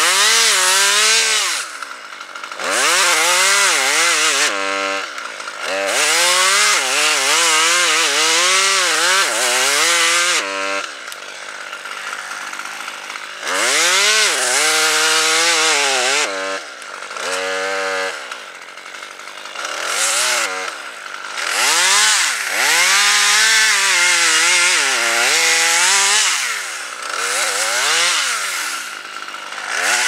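Husqvarna T540 XP top-handle two-stroke chainsaw revving in repeated long bursts, dropping briefly toward idle between them. Within each burst the engine pitch sags and recovers as the chain cuts into the maple trunk.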